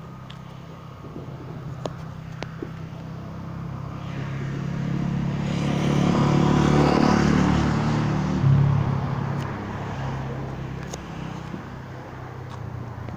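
A car drives past, its engine and tyre noise swelling to a peak about six to eight seconds in, then fading away.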